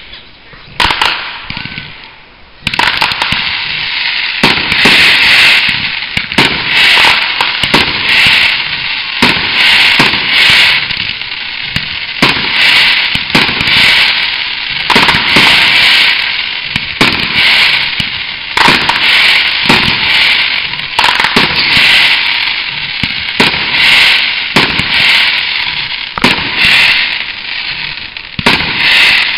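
Fireworks display firing: a few scattered bangs, then from about two and a half seconds in a continuous barrage of launches and bangs over a steady hissing crackle.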